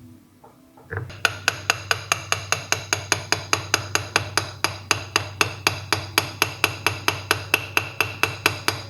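A hammer tapping metal steering-column parts, seating the lower cover and its bearing on the power-steering worm shaft: a fast, very even run of sharp taps, about four or five a second, over a low hum, starting about a second in.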